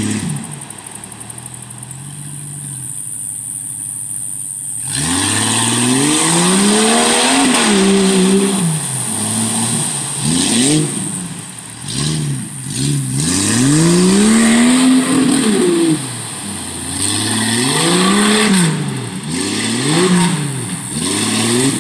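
Jeep engine revving up and down again and again as it drives through a mudhole, over the hiss of tyres churning mud and water. The engine runs lower and steadier for the first few seconds, then revs hard from about five seconds in.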